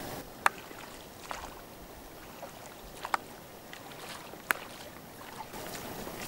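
Inflatable rowboat being rowed: the oars knock in their oarlocks, giving four or five sharp clicks spread unevenly over a low steady hiss.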